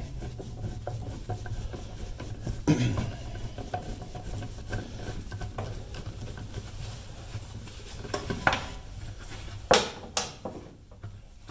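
Light metallic clicking and scraping of a hand tool turning out a small 5/16 screw on a car's fuel filler neck, with a sharp knock about three seconds in and a few sharper clicks near the end, over a steady low hum.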